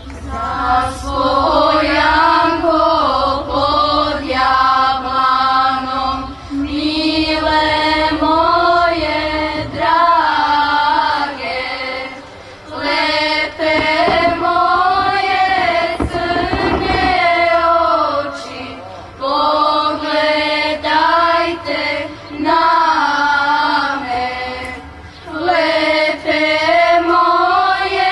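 Children's choir singing a hymn in phrases, with brief pauses for breath between them.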